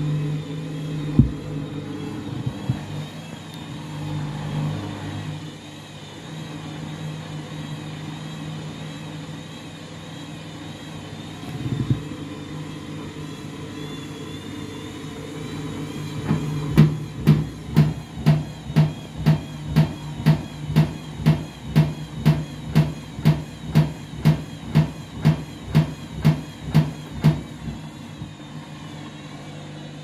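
Front-loading washing machine in an interim spin: the motor and drum run with a steady hum and a wavering whine. About halfway through, a regular thumping sets in, about two thumps a second, and stops shortly before the end.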